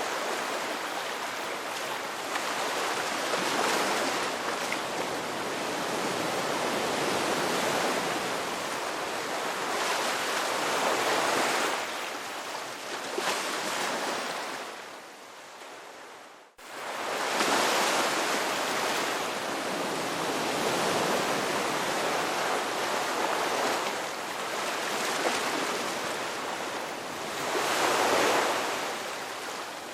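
Sea waves breaking and washing ashore, a steady rush that swells and eases every few seconds. About halfway through, the sound fades and cuts out for an instant before the surf resumes.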